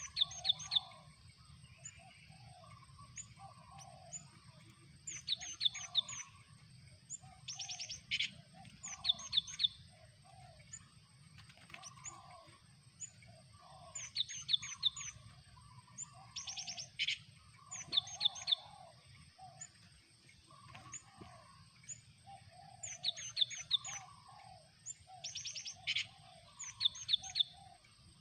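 Cinereous tits (gelatik batu) calling: short bursts of four or five rapid high chirps, repeated every two to three seconds. Lower, softer notes from another bird repeat about once a second beneath them, over a steady thin high tone.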